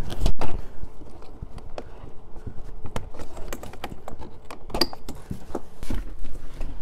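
Scattered plastic clicks and knocks from a car door trim panel being handled: a wiring connector unclipped and the panel lifted off the door. The loudest knocks come right at the start.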